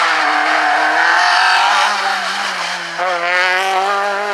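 Citroën C2 rally car engine revving hard through a tight hairpin. The revs sag about two seconds in, then climb again from about three seconds as the car accelerates away.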